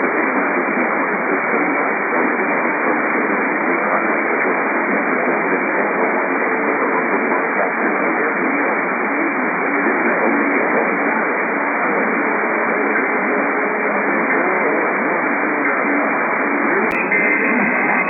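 Steady radio static: an even, muffled hiss from a weak, narrow-band radio reception. About 17 s in, a click cuts it off and music with guitar begins.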